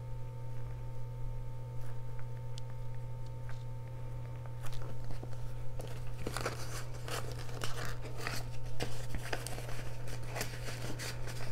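Paper dollar bills rustling and crinkling as they are handled and slid into a clear plastic pocket of a budget binder, starting about five seconds in. Before that, only a few faint taps from a marker writing. A steady low hum runs underneath.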